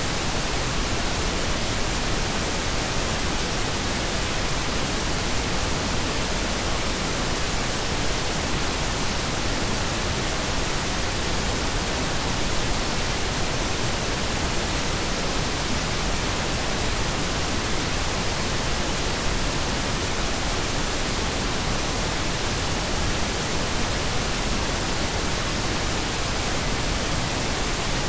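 Synthetic pink noise: a steady, even hiss spread across the whole range of pitch, unchanging throughout.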